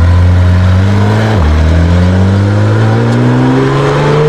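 Race car engine accelerating, its pitch climbing steadily. It dips once about a second and a half in, as at a gear change, then keeps rising.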